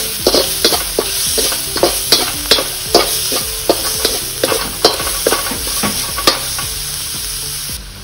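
Chopped garlic, ginger and spring onion whites sizzling in hot oil in a wok, with a metal slotted spatula scraping and clanking against the pan a few times a second as they are stir-fried. Near the end the clanks stop and only the sizzle goes on.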